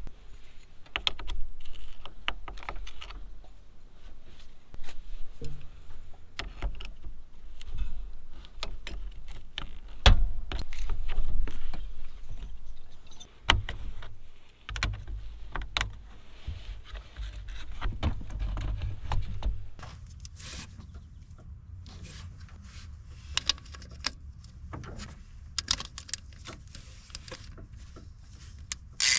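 Hand tools and metal parts clinking, clicking and knocking at an uneven pace as the truck's battery cables are disconnected with hand tools, over a low rumble that eases off about twenty seconds in.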